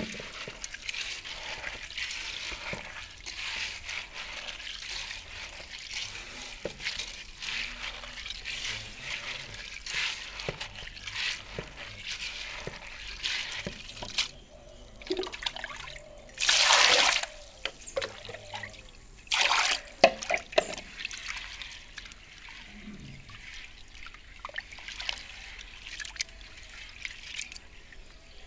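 Hands rubbing and squeezing soaked split urad dal in water in an aluminium pot, a continuous wet swishing and splashing of many short strokes that loosens the black husks. About halfway through come two louder rushes of water, each a second or so long, as water is poured into the pot.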